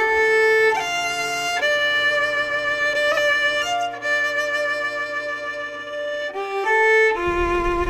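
Background music: a violin playing slow, long held notes that step from pitch to pitch. A low rumble comes in near the end.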